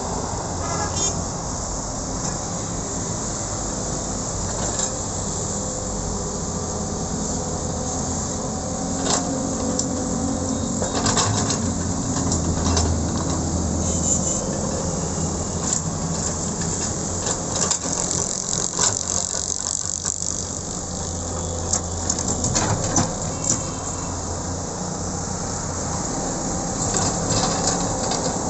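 Doosan wheeled excavator's diesel engine running under hydraulic load while it digs and dumps earth, the engine working harder at times, with scattered clanks and knocks of the bucket against soil and stones.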